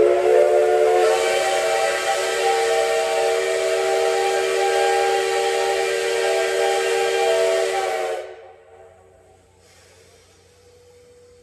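Steam whistle of the D51 200 steam locomotive sounding one long blast of about eight seconds: a loud chord of several steady tones over steam hiss that cuts off abruptly.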